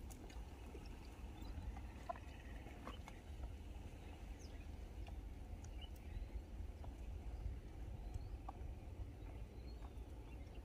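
Faint open-field ambience: a steady low rumble with scattered short high chirps and a few soft clicks, while a bullock team works the soil.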